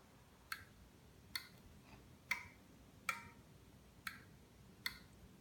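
Six sharp clicks, about one a second, from a 433 MHz wireless remote-control wall switch being switched on and off.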